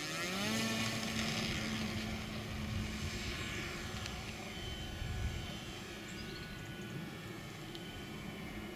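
Electric RC tug plane's motor and 18x12 propeller at about 1800 W, powering up for takeoff. The pitch rises over the first half second, then holds as a steady drone while the plane climbs out with a glider in tow.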